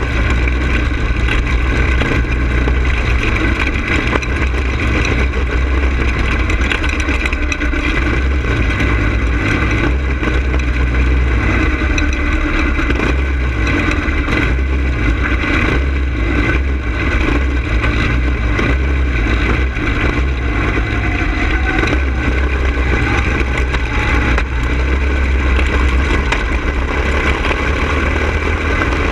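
Go-kart engine running hard through laps of a dirt oval, heard from a camera mounted on the kart, its pitch rising and falling with the turns, over a heavy low rumble of wind and vibration on the microphone.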